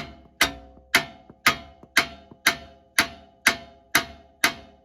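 Steady hammer blows on metal, about two a second, each with a short ringing decay, knocking the worn lower control arm free from under the Dodge Charger.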